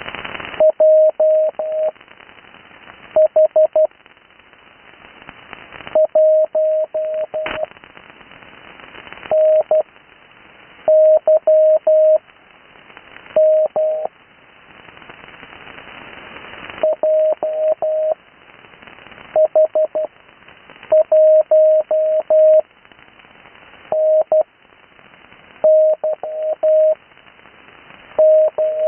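Morse code (CW) on the 80 m amateur band heard through an HF receiver: a single mid-pitched tone keyed in short groups of dots and dashes, spelling out amateur call signs. Receiver hiss swells up in the pauses between characters.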